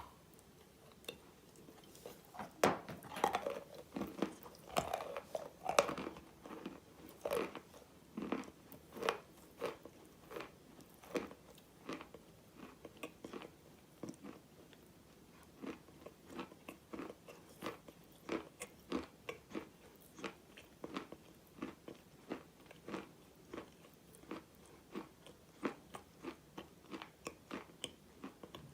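Close-miked biting and chewing of a chalky bar coated in red clay paste. A sharp snap of a bite comes right at the start, then a cluster of loud crunches for the next several seconds, then steady chewing crunches about twice a second.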